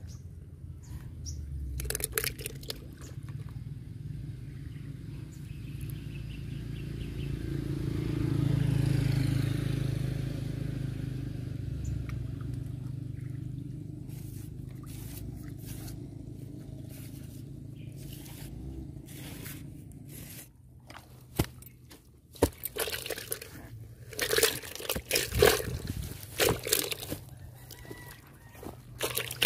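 Low rumble of a passing vehicle, swelling to a peak about nine seconds in and slowly fading. From about twenty seconds in come scattered rustles and knocks from handling the rod and footsteps on grass.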